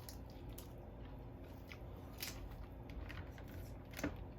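Close-up eating sounds: seafood shells cracking and being chewed, a scattering of short crunches and clicks, with a sharper crack near the end.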